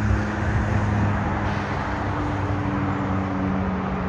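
Steady roar of a Korean Air Cargo Boeing 777 freighter's jet engines as it moves along the runway, mixed with traffic noise.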